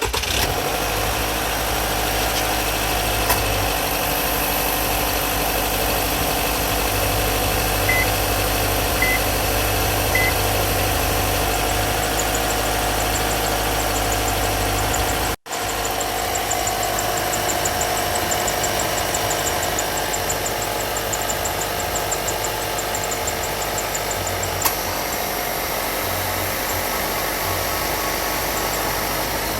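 Subaru Levorg's flat-four engine idling steadily, with a fast, faint high ticking through the middle stretch; this is the noise the owner questions as abnormal. Three short beeps sound about eight to ten seconds in.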